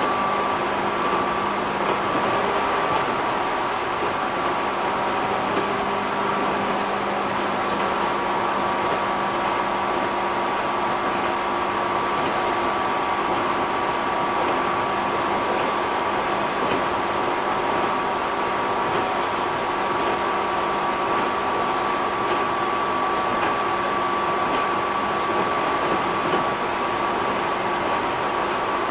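Steady running sound inside a JR 205 series 600 electric train: an even noise with several constant humming tones that hold their pitch throughout.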